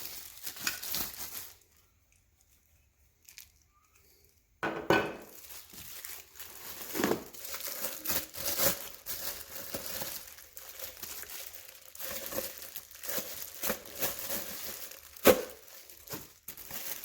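Packaging crinkling and rustling as juicer parts are unwrapped, with a few seconds of near silence early on and a sharp knock near the end.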